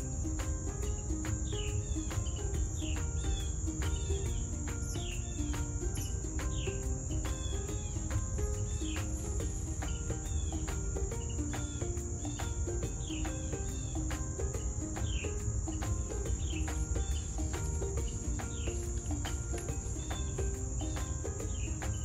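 Steady high-pitched insect trill, typical of crickets, with short falling bird chirps repeating about once a second over a low rumble.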